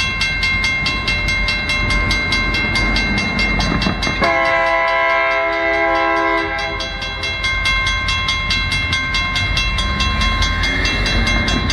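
Grade-crossing bell ringing rapidly and evenly as a diesel locomotive approaches over a low rumble. The locomotive's air horn sounds one long blast of several notes together beginning about four seconds in and lasting near three seconds, and a second blast starts at the very end.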